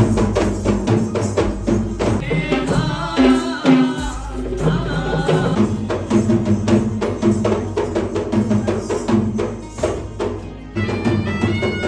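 Traditional folk music with rapid, steady drumming, with a pitched melody coming in over the drums for a while and again near the end.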